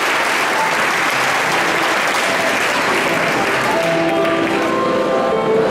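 Audience applauding, thinning out about four seconds in as music begins with held notes.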